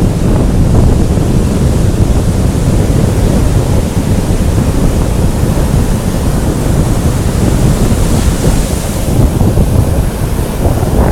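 Heavy storm surf breaking and washing on a beach, under strong wind buffeting the microphone. The loud rumble never lets up.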